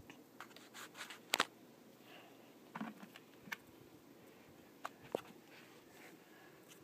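Faint room tone broken by a handful of sharp, light taps and clicks, the loudest pair about a second and a half in, made by a plastic toy figure being handled and knocked against a wooden dollhouse floor.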